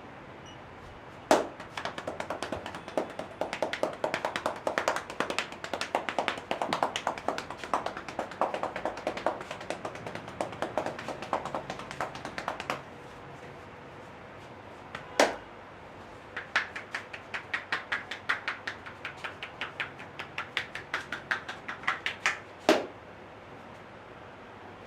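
A barber's hands doing percussive massage on a client, with rapid tapping in two long runs, the first denser than the second. Three single louder slaps come in: one opening the first run, one between the runs, and one ending the second.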